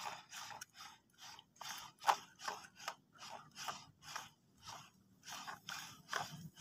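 Plastic toy vehicles being handled: a series of faint, short scrapes, about two a second, irregularly spaced.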